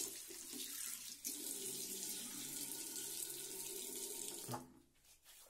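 Bathroom tap running steadily into a sink, then stopping near the end.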